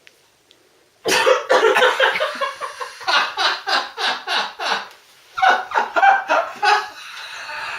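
Hard laughter: quick repeated falling bursts starting about a second in, a short break near the middle, then a second bout.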